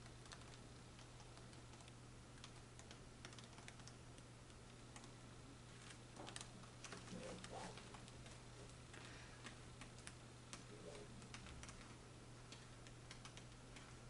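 Near silence: room tone with a steady low hum and faint, scattered small clicks.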